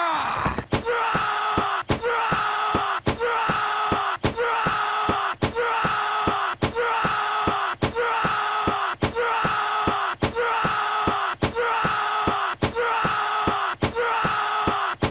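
A short clip of a cartoon character's high, wailing vocal cry, looped over and over about once a second, with a sharp click each time it restarts.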